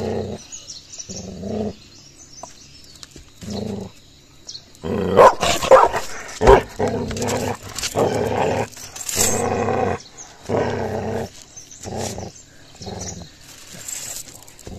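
Tibetan mastiff puppy growling in repeated short bouts while guarding a stick it is chewing, with a louder stretch of snarling and sharp barks about five to seven seconds in.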